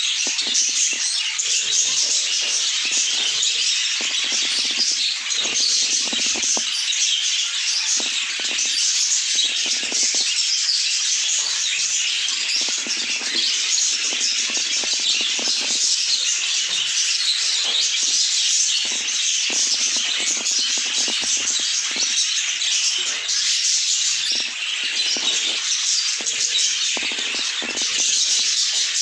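A flock of budgerigars chattering and warbling together in a dense, unbroken mass of chirps.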